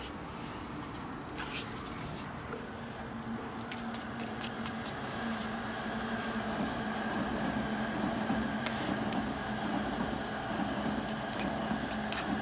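City traffic from the elevated expressway below: a steady rush of passing vehicles, swelling as an engine drone grows louder a few seconds in. Light clicks and scrapes of chopsticks stirring rice in a bowl come through over it.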